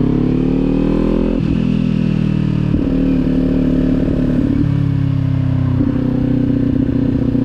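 Kawasaki motorcycle engine running under way. The engine note climbs at first, then jumps to a new pitch about four times, as it does when the rider changes gear.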